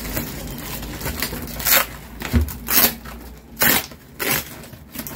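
Ice cream delivery packaging being handled: about five short rustles and knocks in quick succession as tubs are lifted out.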